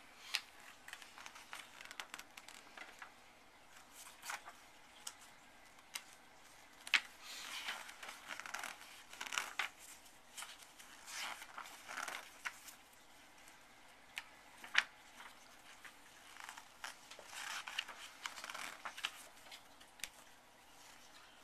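Paper book pages being turned and rustled by hand: quiet swishes every few seconds, with scattered light clicks and taps.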